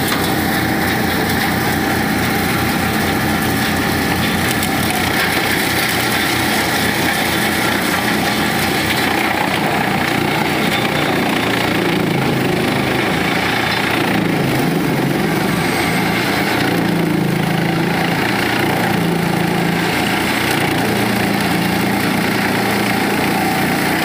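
Engine-driven wood chipper running steadily, its infeed rollers pulling branches into the chipping drum. From about nine seconds in a heavier, uneven low rumble joins the steady drone as a load of branches goes through.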